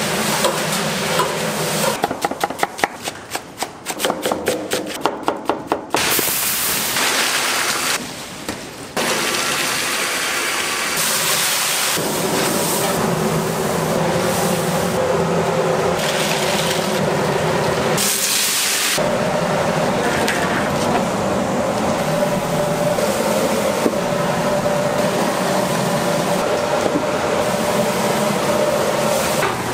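Food-factory processing noise in quick cuts: a run of rhythmic knocks early on, then noisy rushing and hissing, and later a steady machine hum.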